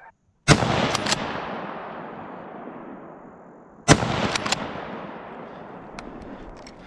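Two shots from a scoped hunting rifle, about three and a half seconds apart, each loud report rolling away in a long echo over about three seconds.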